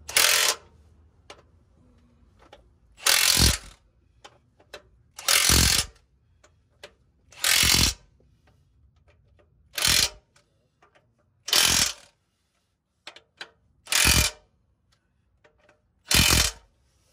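Power impact wrench running in bolts while a truck's bellhousing is fitted to its engine: eight short bursts, each about half a second, roughly every two seconds.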